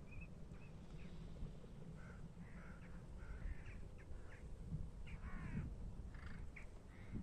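Crow-family birds cawing, a string of short harsh calls repeating every second or so, over a low steady rumble.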